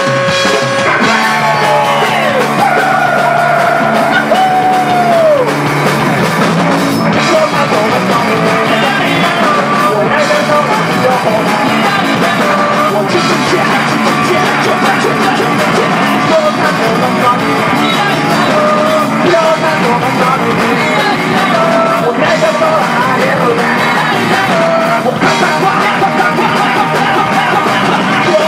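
Rock band playing live: amplified electric guitars, bass and drums, with a male lead vocal singing over them.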